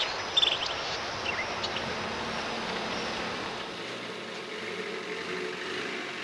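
Armoured car's engine running steadily as it comes along the road. A few short high chirps are heard near the start.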